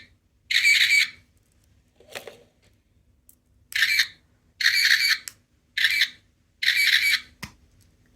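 Squeaker of a small sound-making capsule toy squeezed over and over, giving five shrill, bird-like squawks of about half a second each. There is a soft rustle about two seconds in and a click near the end.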